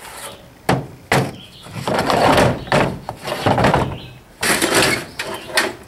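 Scrap metal pieces clanking and clattering against each other and the pickup's bed as they are handled and tossed aside, a run of about half a dozen bangs and rattles.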